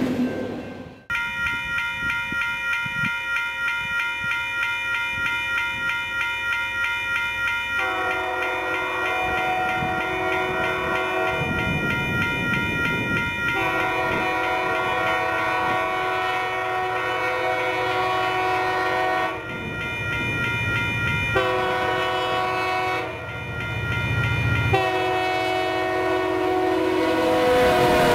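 Horn of a Union Pacific GP40N diesel locomotive, a chord of several notes, sounded as the train approaches: long, long, short, long, the grade-crossing signal. Near the end the chord drops in pitch as the locomotive passes, over the rumble of its engine.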